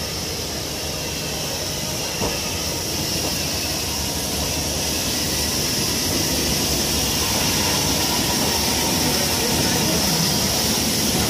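Steam locomotive Merlin, GNR(I) Class V compound 4-4-0 No. 85, hissing steam with a low rumble beneath, the hiss growing steadily louder as the engine comes alongside. There is a single light knock about two seconds in.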